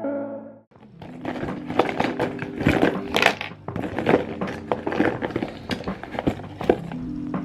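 Plastic makeup products (tubes, brushes, compacts) clicking and clattering against each other and a clear plastic pouch as they are handled and packed, in a quick run of small knocks.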